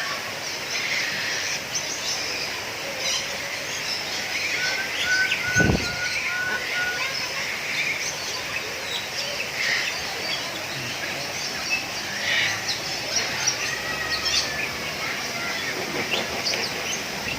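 Many birds chirping and calling at once, with overlapping short high calls. About five seconds in, one bird gives a run of about seven short, evenly spaced notes. Just before six seconds there is a single dull thump.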